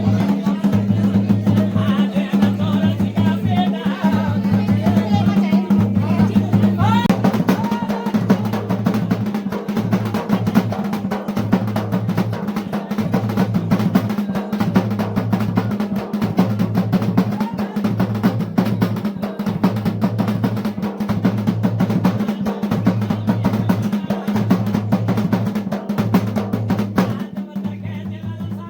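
Traditional Garhwali dhol and damau drumming for a mandan dance, fast and continuous with rolling beats.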